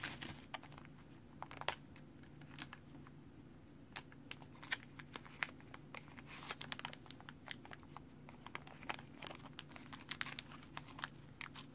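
Small clear plastic zip-lock bag crinkling and crackling in the fingers as its seal is worked open, with many short, sharp clicks scattered through.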